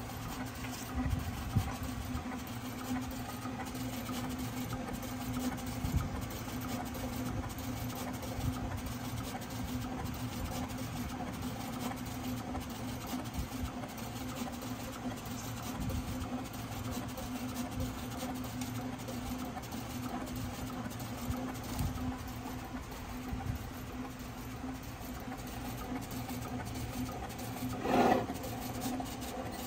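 SAGA A3 Pro decal cutting plotter cutting a sticker sheet: its motors drive the cutting head and feed rollers with a steady hum and scattered light knocks, and a brief louder burst near the end.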